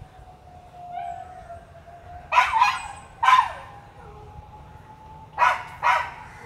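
A dog barking in short single barks: three a little before the middle and two more near the end.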